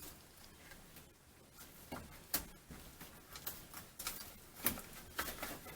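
Scattered light clicks and taps, irregular and a second or so apart, from refitting and tightening a hose and hose clamp on a Mercruiser engine's circulating-pump hose connector.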